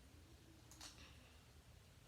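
Near silence, with one faint click of a Rubik's cube layer being turned a little under a second in.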